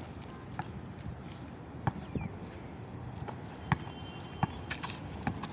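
Basketball bouncing on asphalt, a series of irregularly spaced thuds.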